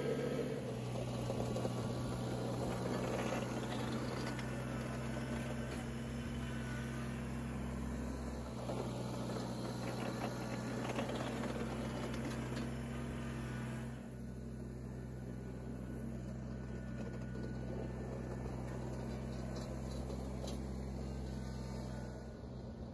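Kubota BX compact tractor's diesel engine running steadily while it works snow with a rear blade. The hissy upper part of the sound thins out and it gets a little quieter about 14 seconds in.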